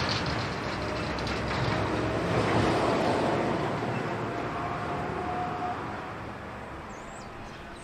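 A heavy vehicle driving past. Its engine and tyre noise builds to a peak about three seconds in, then slowly fades away.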